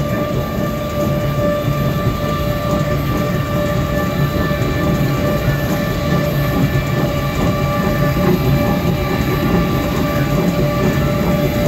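Electric monorail train running, heard from inside the car: a steady rumble with a constant whine over it.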